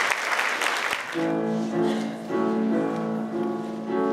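Audience applause that stops about a second in, then the piano accompaniment begins, playing sustained chords as the introduction to a show tune.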